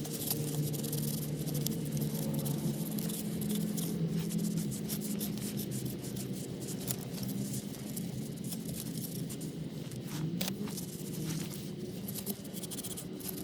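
Light scraping, rubbing and clicking of hand work on small motor parts, over a steady low hum.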